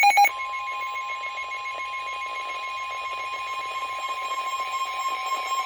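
Emergency Alert System warning broadcast: a few short electronic data bursts at the very start, then a steady single-pitch alert tone held over faint hiss.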